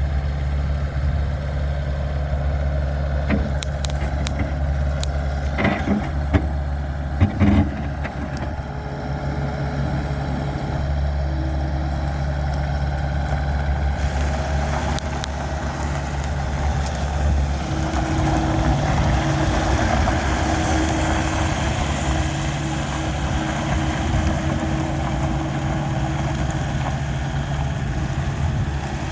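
Kubota SSV75 skid steer loader's diesel engine running steadily, with a few sharp clanks in the first several seconds. In the second half the sound grows busier, with a steady whine.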